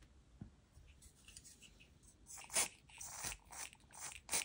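Handling noises on a wooden work surface: a faint tap, then a run of short crunchy clicks and scrapes in the second half, the loudest just before the end.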